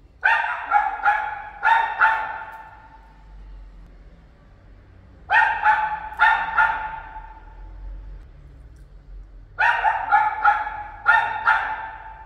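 A dog barking in three bouts of quick barks, four to seven in each, a few seconds apart. The landlord puts the barking down to the dog not yet being used to its new home.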